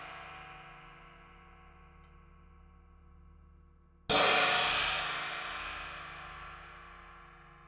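Handmade B-20 bronze cymbal ringing out and fading from a strike just before, then struck once more about four seconds in and ringing with a long, slowly fading decay.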